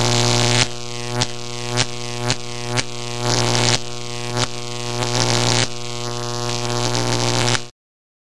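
Electric buzz: a steady low hum with a stack of overtones, broken by sharp clicks about every half second and patches of crackling hiss. It cuts off suddenly near the end.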